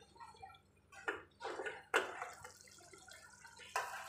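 Thick pea-and-tomato gravy bubbling in an aluminium kadai on the gas flame, with a few separate plops and splutters as bubbles burst, the sharpest about two seconds in and at the very end.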